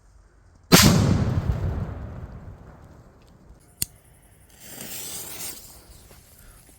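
A loud firework bang just under a second in, echoing away over about two seconds, then a single sharp crack and a brief hissing rush.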